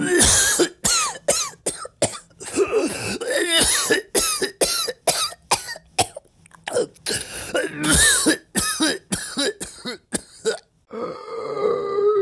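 A man coughing and hacking in fits, dozens of harsh coughs in quick succession with only brief gaps, as if choking on something in his lungs. Near the end the coughing gives way to a longer, strained sound from the throat.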